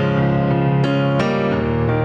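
Background music: soft electric piano playing gentle sustained chords, a new chord struck about every half second.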